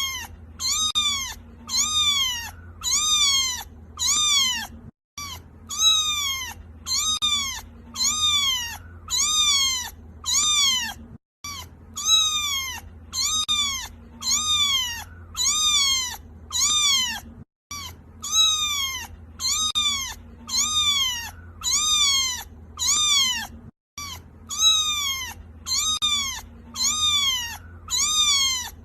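A kitten crying in high-pitched meows, about one a second, each call rising and then falling in pitch. It is a short recording looped, with a brief gap about every six seconds, over a faint steady low hum.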